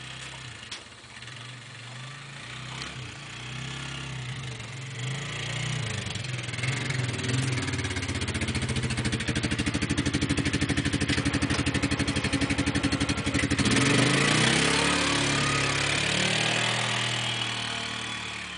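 ATV engine running under load while plowing snow, growing louder over the first half with a rapid even pulsing in its note. Its pitch shifts about three-quarters of the way in, and it fades near the end.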